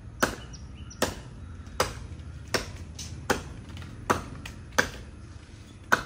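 Hand-swung blade chopping into jackfruit wood: eight sharp, evenly spaced blows, about one every three quarters of a second.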